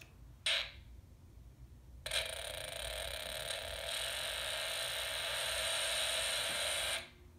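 Snap Circuits AM radio speaker giving a steady, harsh screeching noise instead of a station, after a brief burst about half a second in; the noise cuts off suddenly near the end. The screech is the sign of the circuit malfunctioning, a fault the builder could not find.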